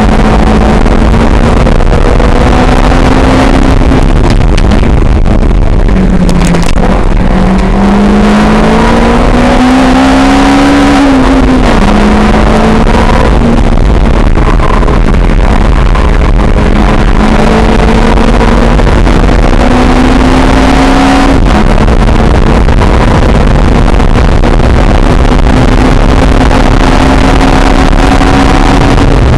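Lotus sports car engine heard from inside the open cockpit, driven hard on a racing circuit. Its pitch slowly rises and falls with the revs: it drops about six seconds in, then climbs sharply and falls again, and afterwards rises gently through the rest of the lap.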